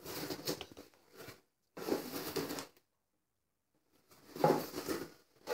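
Rustling and scraping handling noises in three short bursts as a cardboard box and the items in it are moved about.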